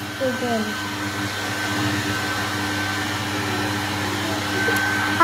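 Hand-held hair dryer running steadily, a continuous whir with a high whine, blowing a dog's fur dry.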